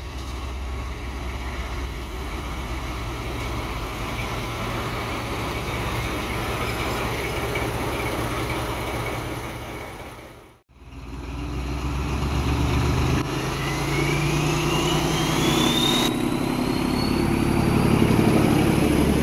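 Class 14 diesel-hydraulic locomotive D9551's engine running steadily, cutting out briefly about ten seconds in, then coming back louder and revving up. Over the last several seconds a high whistle rises steadily in pitch.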